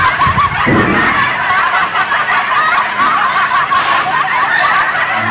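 Laughter, dense and unbroken, with a short low sound about a second in.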